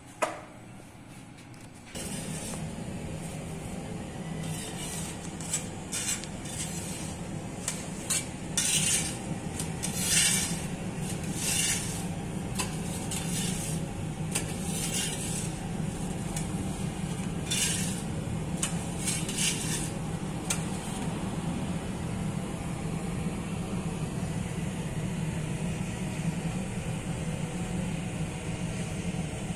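Steady hum of an industrial rotating-deck bread oven, with a scatter of short hissing and clattering noises through the first two-thirds.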